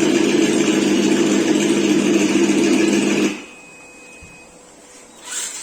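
HSP Brontosaurus RC truck with an engine-sound module running at a steady pitch, starting abruptly and cutting off suddenly after about three seconds. A brief faint rustle follows near the end.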